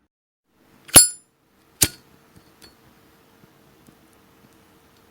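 Zippo-style petrol lighter's metal lid clinking open with a bright ringing ping, followed a moment later by a second sharp metallic click.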